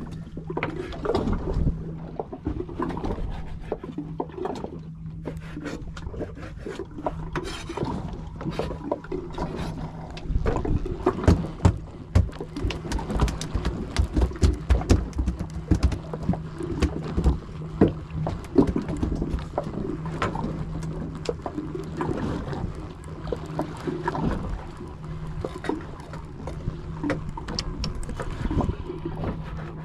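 A boat's engine hums steadily under frequent sharp knocks and clicks of gear and splashy water noise.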